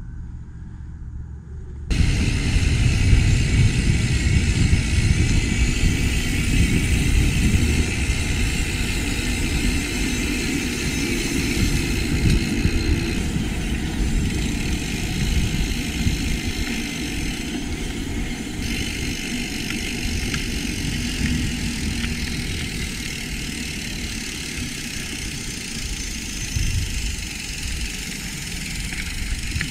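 Wind buffeting the microphone and the tyre noise of a mountain bike rolling along a trail, a loud low rumble that sets in suddenly about two seconds in.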